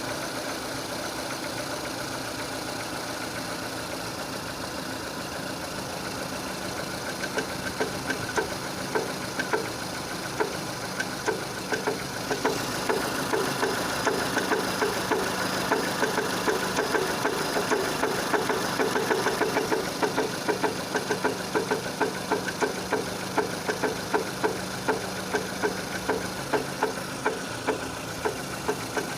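Renault K4M 1.6-litre four-cylinder petrol engine idling. About seven seconds in, a sharp, regular knock sets in, roughly two to three strikes a second. This is the knock the owner says comes from low down in the engine and appears as it warms up.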